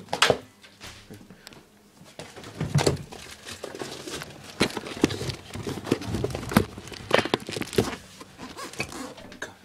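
Handling noises: rustling and an irregular series of knocks and thuds as household items, among them the detergent and fabric softener containers, are put away.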